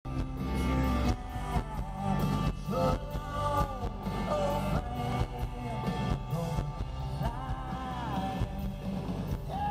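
Live country-rock band playing in an arena, recorded from within the crowd: a sung melody over drums and bass.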